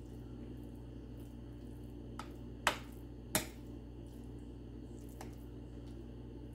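A metal spoon clicking against a glass baking dish a few times while spreading mashed butternut squash, two of the clicks sharper than the rest near the middle, over a steady low hum.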